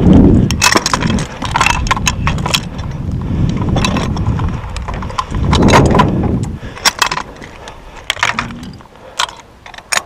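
Wind buffeting a helmet-camera microphone, with metallic clinks and rattles from the spiral armour rods and suspension-clamp hardware of an overhead-line earth wire as they are worked loose by hand. The wind eases about two-thirds of the way through, leaving sharper, separate clicks.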